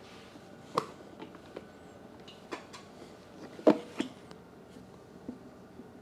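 Scattered plastic clicks and knocks as a new air cleaner housing is tried for fit against the carburettor of a Predator 212 engine, the loudest knock about three and a half seconds in.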